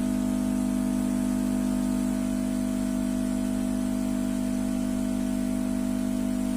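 An engine running at a steady idle, a constant low hum that doesn't change in pitch.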